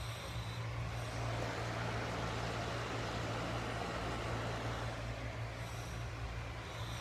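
A sleeping woman breathing slowly and noisily in a light snore. One long breath swells in about a second in and fades near the end. A steady low hum runs underneath.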